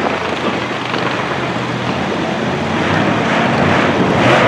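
Mega truck's engine running hard as the truck drives across a dirt and mud course, getting louder near the end.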